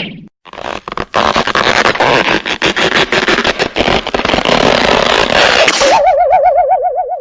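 Cartoon sound effects: a few short clicks, then a long, dense rattling clatter like a sputtering cartoon motor, followed about six seconds in by a wavering, warbling tone with a fast vibrato.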